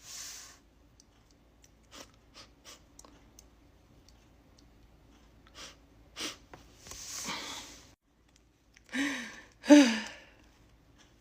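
Noisy breaths building up, then two sneezes in quick succession near the end, the second louder.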